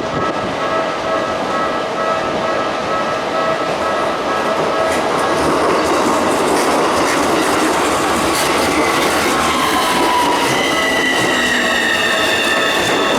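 Keisei 3050 and Keikyu New 1000 electric trains passing each other at a level crossing, with wheel clatter and running noise swelling about halfway through. Near the end the traction motors' whine falls slowly in pitch. Steady electronic tones through the first half are likely the crossing's warning alarm.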